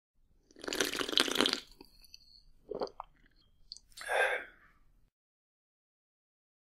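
Someone loudly slurping a sip of a hot drink about a second in, then a short gulping swallow and a brief breathy exhale a little after that.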